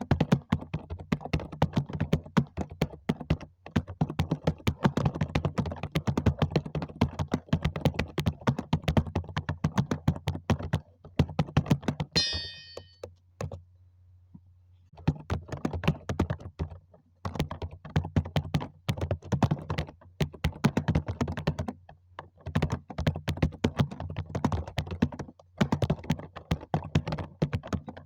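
Rapid typing on a computer keyboard: fast runs of key clicks broken by short pauses, with one longer pause about halfway through, just after a brief high-pitched blip.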